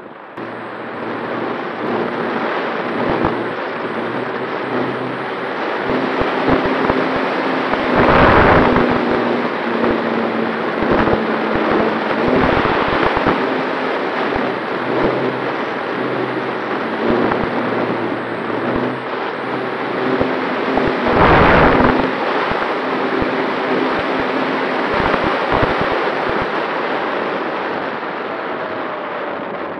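Wind rushing over the onboard camera of a Skua FPV plane in flight, mixed with the hum of its electric motor and propeller. The wind surges louder twice, about eight seconds in and again past twenty seconds.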